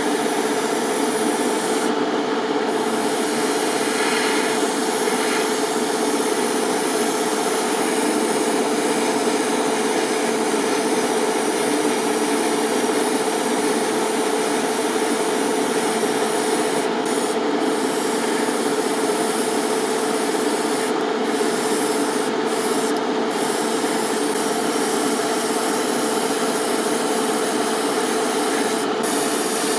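Small power tool sanding a surface, running steadily with a constant hum under a rasping hiss.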